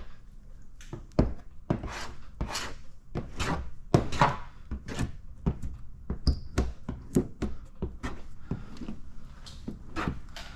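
Paint protection film being worked onto a truck fender: a run of short, irregular swishes and light knocks as the film is squeegeed and pressed down, with a brief squeak about six seconds in.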